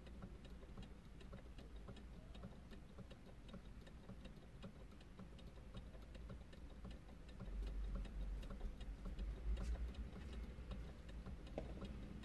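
Steady light ticking, about three to four ticks a second, over a low hum; a low rumble swells up about halfway through and fades near the end.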